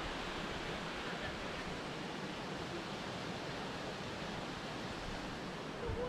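Steady rushing of falling water from a creek waterfall, an even hiss without breaks.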